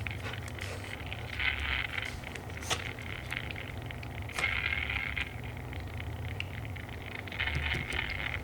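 A Shiba Inu breathing noisily: a raspy, hissing breath about every three seconds, over a steady low hum.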